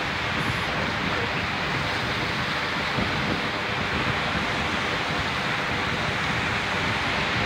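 Sea surf washing onto a rocky shore, a steady rush, mixed with wind buffeting the phone's microphone.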